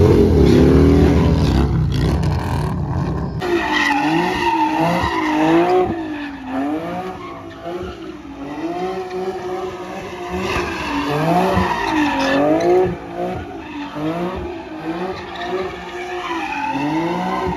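A car being driven hard with its tyres squealing and skidding; the engine's pitch swings up and down about once a second as the throttle is worked. It is loudest and heaviest in the first few seconds.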